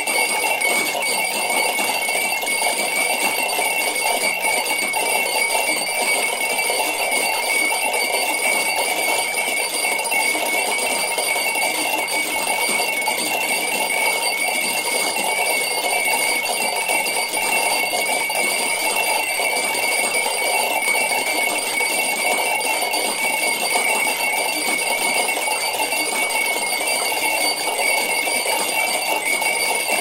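Many drinking-bird toys bobbing at once, their small clinks overlapping into a steady, dense jingling texture with a few high ringing tones held throughout.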